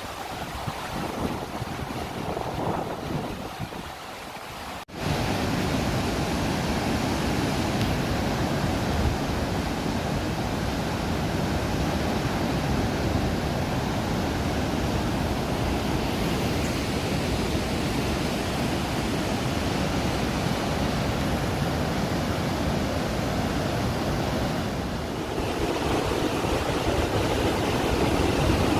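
Steady rushing roar of the Rhine Falls' water; it jumps suddenly louder about five seconds in and carries on unbroken.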